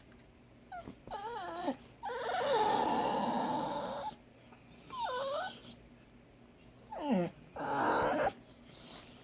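Pet dogs whining: short, high, wavering whines that slide up and down in pitch. A longer, rougher cry comes about two seconds in and lasts about two seconds, and another shorter rough cry comes near the end.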